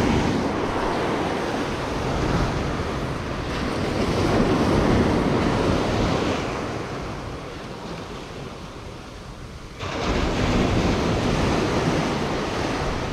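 Ocean surf breaking and washing up a rocky beach, with wind buffeting the microphone. The noise swells and falls with the waves and jumps up suddenly about ten seconds in.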